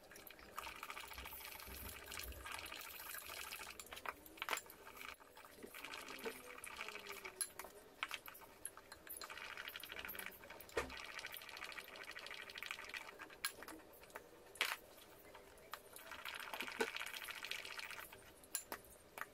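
Madeleine batter whisked by hand with a silicone-coated whisk in a glass bowl: faint wet swishing and slapping in spells, with a few sharp clicks of the whisk against the bowl.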